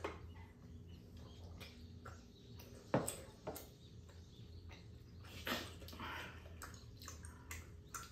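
Tableside eating sounds: chopsticks and tableware clicking and knocking, with mouth noises of eating. The loudest is a sharp knock about three seconds in, a ceramic mug set down on the table. A steady low hum runs underneath.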